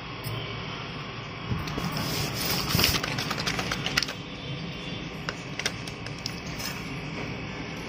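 Small plastic spoon scraping and clicking inside a plastic Kinder Joy cup as the cream is scooped out: a run of light clicks and scrapes, thickest in the middle, with a few scattered clicks later.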